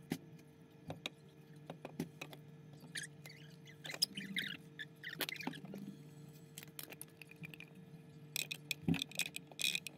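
Scattered small clicks and taps, with brief rustles, over a steady low hum.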